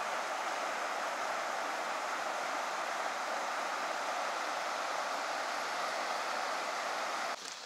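Steady rushing of river water running over a shallow rapid, dropping off sharply near the end.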